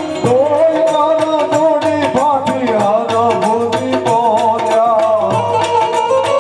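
Indian devotional folk music: a man sings over a harmonium's held chords while small hand cymbals keep a steady clicking beat. The voice comes in just after the start and drops out about a second before the end, leaving the harmonium and cymbals.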